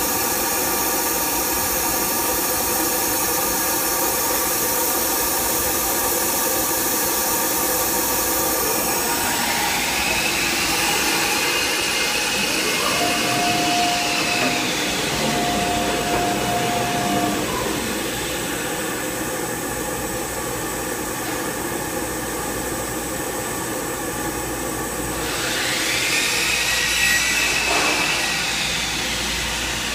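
Thermwood 5-axis CNC router running: a steady machine hum made of many tones. Twice, about nine seconds in and again about twenty-five seconds in, a whine rises, holds and falls away, and a thin steady tone sounds briefly in between.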